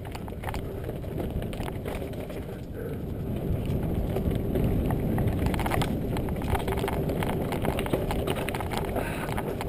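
Mountain bike riding fast down a dirt forest singletrack: tyres rumbling over the trail with frequent rattles and knocks from the bike over roots and stones, growing louder over the first few seconds.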